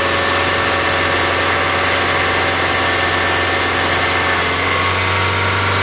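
1998 Honda Accord engine running steadily at a raised idle of about 2000 rpm with the AC compressor engaged, together with one electric cooling fan. A low hum grows slightly louder near the end.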